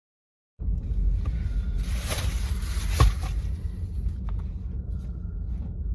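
A steady low rumble that starts abruptly just after half a second, with fainter rustling above it and one sharp click about three seconds in.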